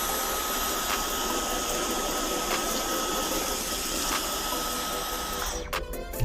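Cordless stick vacuum running steadily: a constant airy suction noise with a thin high whine, which drops out briefly near the end.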